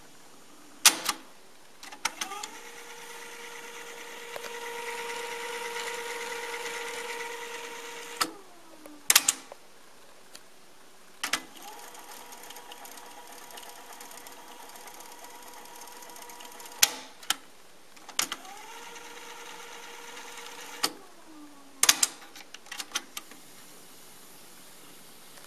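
JVC KD-A11 cassette deck's transport keys clunking and the tape fast-winding: three stretches of a whine that rises as the reels spin up and falls away as each wind is stopped, with sharp key clicks between them. Near the end, Play is engaged.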